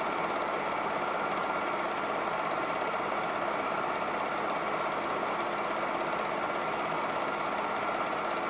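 Super 8 film projector running at a constant speed, its film-advance mechanism making a fast, even clatter.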